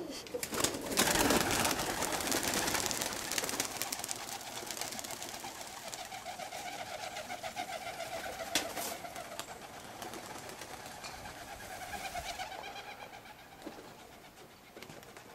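Young Birmingham roller pigeons cooing inside their kit box, a repeated, pulsing coo that goes on for several seconds. A loud rustling burst comes first, about half a second in, lasting a couple of seconds.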